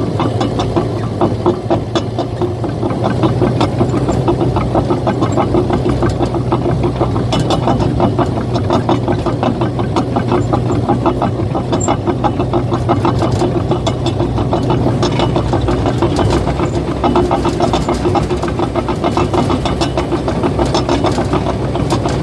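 Caterpillar bulldozer running, its diesel engine droning under a rapid, continuous clatter from the steel tracks. The engine note drops about two-thirds of the way through.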